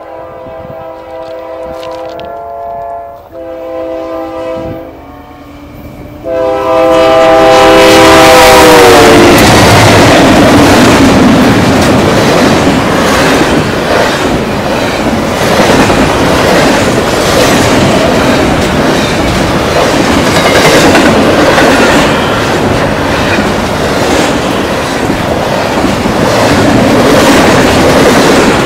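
Air horn of an approaching GE Dash 9-44CW diesel locomotive sounding four blasts, the last one long and dropping in pitch as the locomotives pass close by. Then the loud, steady rush and clickety-clack of double-stack container cars rolling past.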